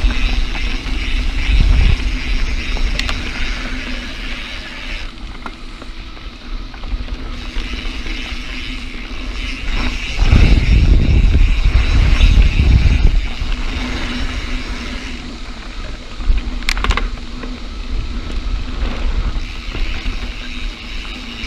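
Mountain bike ridden along a dirt forest trail: tyres rolling over dirt and the bike rattling, with wind buffeting the handlebar-mounted action camera's microphone, heaviest from about ten to thirteen seconds in. A single sharp knock near the end.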